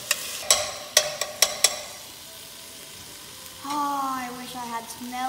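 Spatula chopping ground turkey against the bottom of an enameled pot, about six sharp knocks in the first two seconds, over meat and peppers sizzling as they fry. After that only the sizzle goes on, and a girl's voice comes in near the end.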